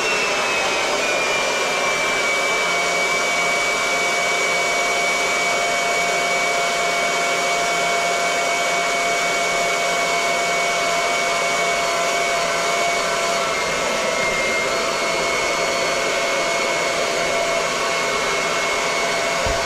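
Small electric pump running steadily, draining a water heater tank through a garden hose, with a high motor whine that sinks slightly in pitch over the first couple of seconds and then holds.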